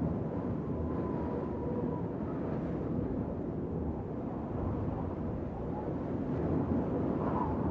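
Wind blowing in a steady low rumble.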